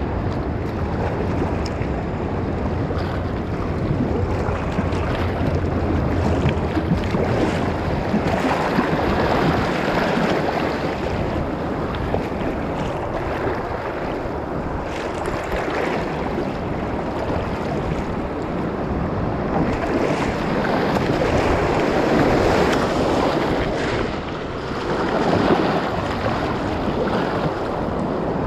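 Whitewater rushing and splashing around a kayak running class II rapids, with wind buffeting the microphone and the splash of paddle strokes.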